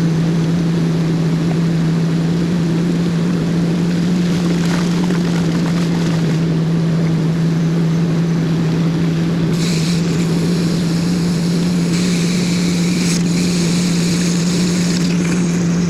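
2002 Ford E-250 van's freshly rebuilt engine running at a steady idle, with one strong steady hum. A higher hiss joins about ten seconds in.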